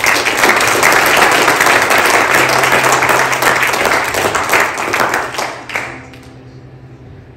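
A congregation applauding, many hands clapping together, dying away about six seconds in.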